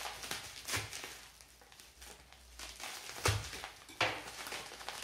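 Bubble-wrap packaging around a boxed SSD being handled and pulled open, crinkling and rustling in short irregular bursts, with a soft thump about three seconds in.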